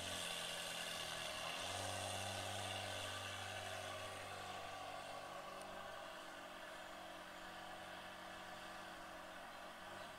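Ferrari engines idling and running at low speed. The main source is a Ferrari 360 Modena's V8 as the car creeps along, with a second Ferrari running close by. The steady low engine note grows stronger about two seconds in and eases off about six seconds in.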